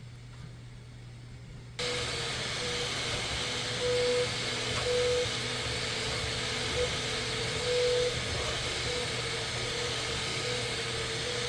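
Bambu Lab 3D printer running: a steady fan hiss and low hum, with the stepper motors whining in short, irregular on-off stretches as the print head moves. The sound steps up suddenly about two seconds in.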